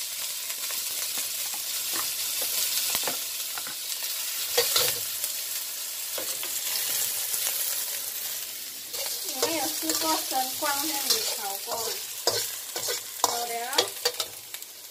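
Diced jicama sizzling in hot oil in a wok as it is stir-fried, a metal spatula scraping and clicking against the pan. Wavering pitched tones come in over the sizzle in the second half.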